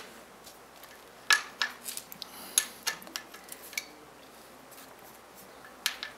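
A handful of scattered light metal clinks as loosened valve cover bolts are drawn out by hand from a Kawasaki KLR 650's cylinder head and gathered up. The two loudest come about a second and a half and two and a half seconds in.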